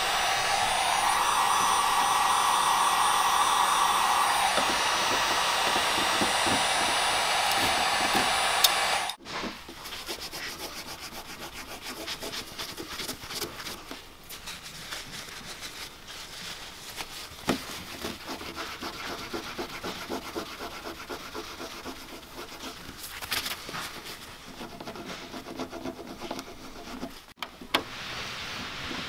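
An electric heat gun blows steadily for about the first nine seconds, warming the old decal letters. It then gives way to irregular scratchy rubbing and scraping with a few light clicks, as the letters are prised off the painted bonnet with a plastic trim tool and the leftover adhesive is rubbed off with the fingers.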